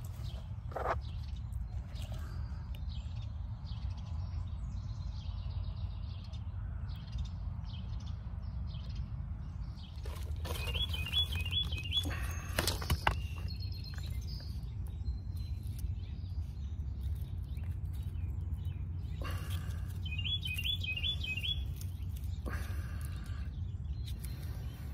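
Outdoor ambience: a steady low rumble, with small birds chirping in two short, quick phrases about ten seconds apart. Gravel crunches and clicks as hands dig into the stones, most around the middle.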